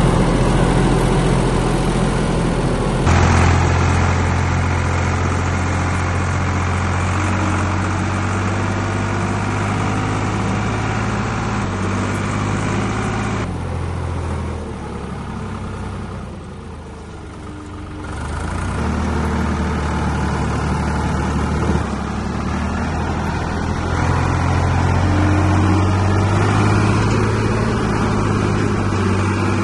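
Old Ford backhoe's engine running steadily with a deep, even hum, heard close up from on the machine. The engine sound shifts about three seconds in and drops for a few seconds past the middle before picking back up.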